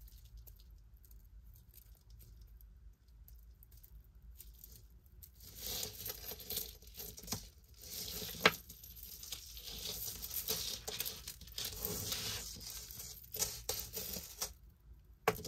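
Costume jewelry being handled: metal chains and beaded necklaces sliding, rustling and clinking together on a tabletop. It is faint at first, with a few small ticks, and grows busier about five seconds in, with one sharp click about halfway through.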